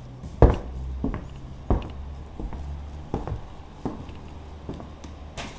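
Irregular footsteps and scattered knocks on a wooden workshop floor, about eight short thuds, the loudest about half a second in, over a low steady rumble.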